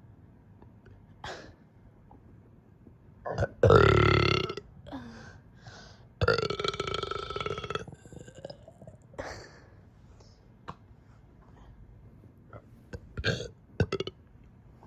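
A person burping loudly twice: a burp of about a second at three and a half seconds in, then a longer one of about a second and a half some two seconds later. A few short, fainter sounds follow near the end.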